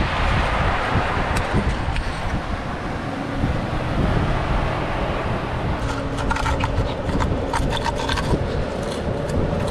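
Knife cracking and scraping into a long-spined sea urchin's shell, with a dense run of small crisp clicks about six to eight seconds in, over a steady low rumble.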